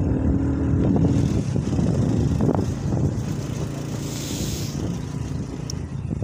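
Motorcycle engine running while riding slowly over a rutted dirt track, with a single knock about two and a half seconds in and a brief hiss near four seconds.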